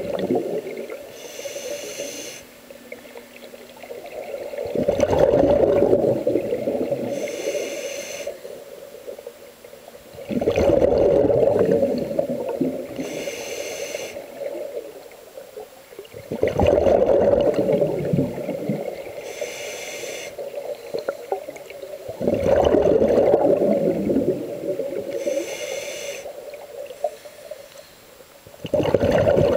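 Scuba diver breathing through a regulator underwater: a short hiss on each inhale, then a louder rush of bubbles on each exhale. The cycle repeats about once every six seconds.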